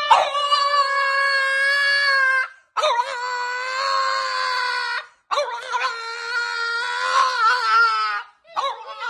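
French bulldog howling in three long, high-pitched calls of about two and a half seconds each, with short breaks between them; the last call wavers and falls at its end.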